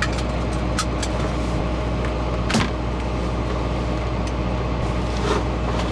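Steady engine and road drone inside a moving vehicle's cab, with a few brief knocks and rattles.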